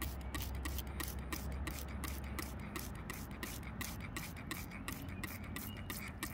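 Trigger spray bottle squirting water in quick repeated sprays, about four or five short hisses a second.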